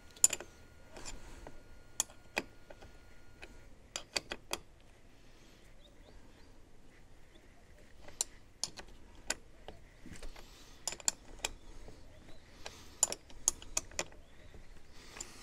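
Scattered light clicks and knocks of hand tools and wiring being worked on, a few every couple of seconds.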